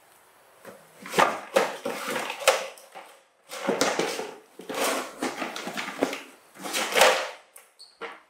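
Plastic toy dump truck clattering and scraping on a wooden floor as it is tipped over and set back on its wheels: about five noisy bursts with sharp knocks.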